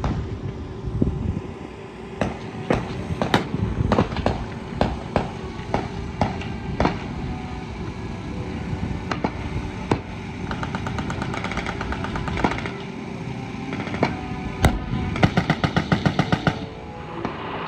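Machine-gun fire: single shots and short rapid bursts of about ten rounds a second, heard over music with a drum beat.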